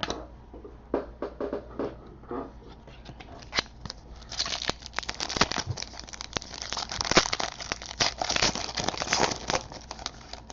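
Trading cards and a foil pack wrapper being handled: crinkling, rustling and quick clicks as cards are flicked through, sparse at first and busier from about halfway.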